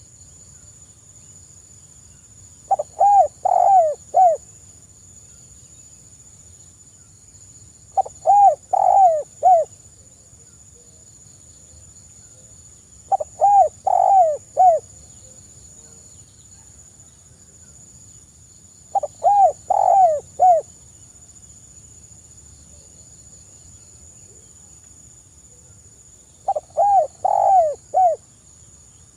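Spotted dove (tekukur) cooing: five phrases of four or five notes each, one every five to six seconds.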